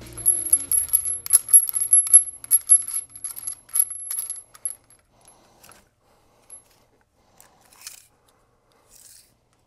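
Light metallic clinking and jingling from steel track bar hardware being handled. A quick run of small clicks with a high ringing lasts about five seconds, then a few scattered soft clicks follow.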